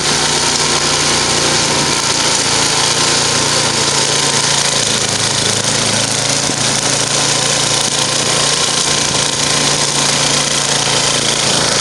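Murray 10 HP snow blower's engine running steadily at speed, with no breaks or stumbles.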